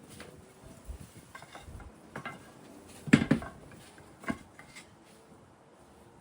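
Light knocks and clacks of wooden pieces being handled and fitted together, a handful of separate strikes with the loudest, a double knock, about three seconds in.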